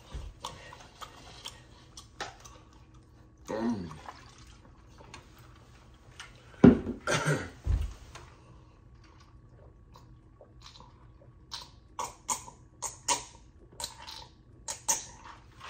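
A person drinking a cold drink from a plastic cup, close to the microphone: sips and swallows, with a run of short gulps, about two a second, in the last few seconds.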